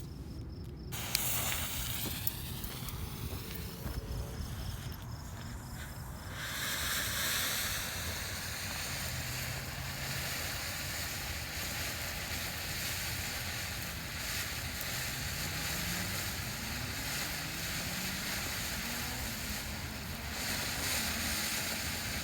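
Consumer ground fountain firework: a faint sputtering fuse, then about six seconds in the fountain erupts into a steady, loud hiss of spraying sparks.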